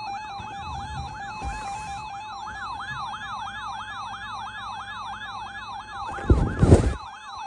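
Emergency alert attention tones: a steady, slightly pulsing tone with a siren-like warble sweeping rapidly up and down over it, signalling the start of a flash flood warning. Two loud thumps come near the end.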